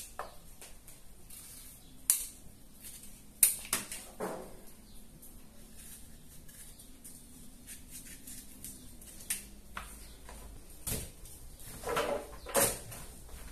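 Scattered sharp clicks and knocks, with quieter scraping between them, of a kitchen knife peeling and cutting a hard-skinned pumpkin over a plastic colander at a steel sink. Several louder knocks come near the end.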